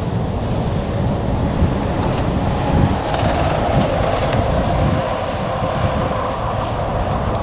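Twin CFM56 turbofan engines of a Boeing 737-800 at taxi power: a steady low rumble with a hum that strengthens about three seconds in.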